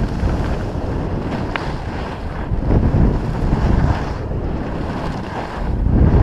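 Wind buffeting a GoPro's microphone on a fast ski run, with skis hissing and scraping over chopped-up spring snow. The rush swells and fades with the turns, loudest near the end.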